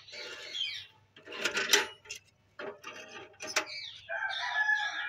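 Dry firewood sticks snapping and knocking against a metal bucket stove as they are broken and put in, with the loudest cracks about a second and a half in. A rooster crows near the end.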